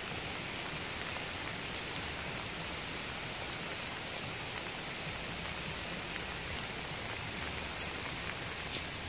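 Steady rain falling, a constant hiss with a few single drops ticking close by now and then.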